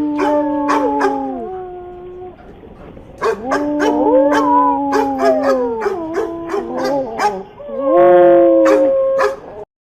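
A dog howling in long drawn-out notes, each held a second or two and falling away at the end, with short sharp sounds in between. The sound cuts off abruptly near the end.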